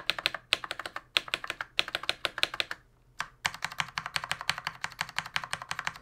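Stabilized long keys, a spacebar and a Shift key on Cherry stabilizers, pressed rapidly over and over. They make a fast run of clacks, with a short pause about halfway through.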